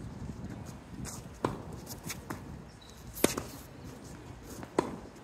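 Tennis balls being struck by a racket and bouncing on a hard court: sharp pops about every one and a half seconds, the loudest about three seconds in, with fainter taps between.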